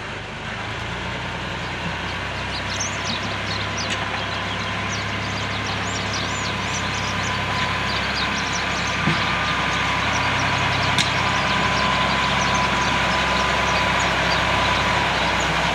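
Farm tractor's diesel engine running as the tractor reverses with a rear blade, pushing and levelling heaps of loose soil. The engine grows steadily louder as it comes closer.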